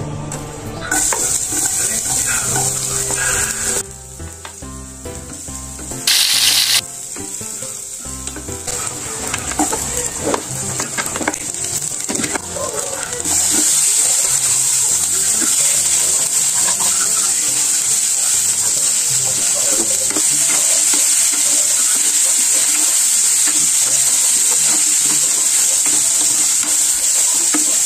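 Onion and yardlong beans frying in hot oil in a saucepan, sizzling and stirred with a wooden spatula. There is a brief louder burst of hiss about six seconds in, and the sizzle grows louder and steadier from about halfway.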